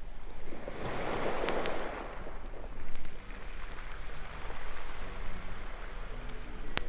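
Ocean surf on a sound-effects record: a wave of rushing noise swells about a second in and then ebbs away, with a few clicks of record surface noise. A tune begins faintly near the end.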